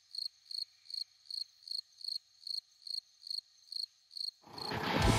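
A single cricket chirping in short, evenly spaced chirps, about two and a half a second, over otherwise dead silence: the classic 'crickets' gag for an awkward pause. Near the end, music and a vehicle's sound fade in and cover it.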